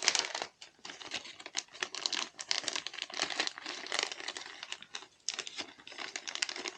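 Small plastic parts bag holding computer case screws being handled, crinkling irregularly, the crackling stopping at the end.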